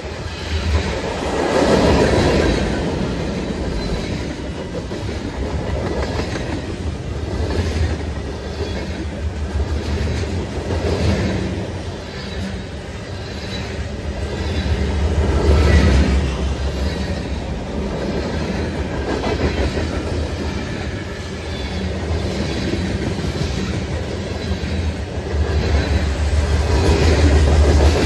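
Freight train cars rolling past at close range, covered hoppers and then autoracks: a steady rumble of steel wheels on rail with clickety-clack over the rail joints, swelling and easing as the cars go by.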